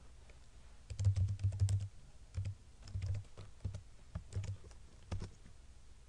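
Typing on a computer keyboard: a quick run of keystrokes about a second in, then single keys and short groups of keys every half second or so.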